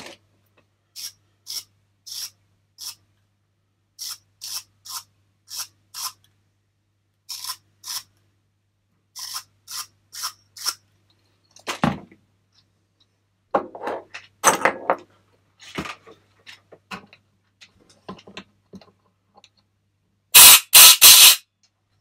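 A run of short, sharp squeaks, about two a second, as an Allen key is worked into stiff, dirt-filled bolt threads in a cylinder head; then a knock and some clatter of tools on the bench. Near the end, three quick blasts of compressed air from an air-line blow gun, louder than anything else.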